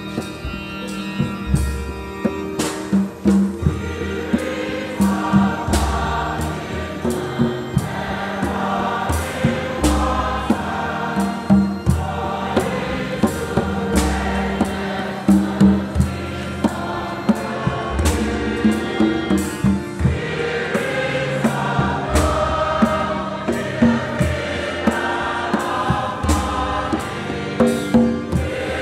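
Choir and congregation singing gospel music over a steady beat of hand drums and percussion, including a clay pot drum struck on its mouth with a pad, amplified through a church PA.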